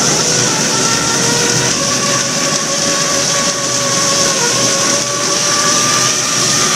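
Lobster boat's engine and deck machinery running loud and steady: a continuous hiss with a steady whine over it.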